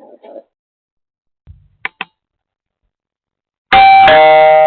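Two quick clicks, then a loud two-note ding-dong doorbell chime, its second note lower, ringing on and fading slowly.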